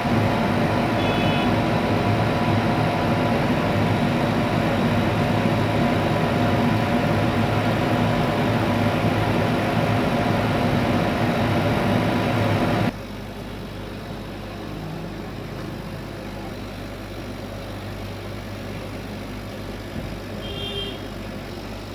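CNC laser cutting machine running with a steady mechanical hum. It cuts off abruptly about 13 seconds in, leaving a quieter steady hum, with a brief high beep about a second in and another near the end.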